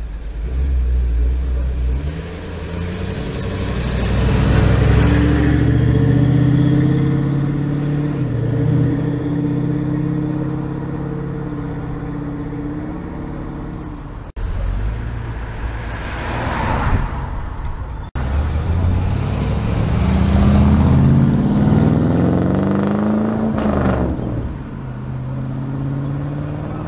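Cars driving past the camera at close range, their engines pulling away with rising pitch. One car passes quickly about two-thirds of the way in. The sound breaks off abruptly twice.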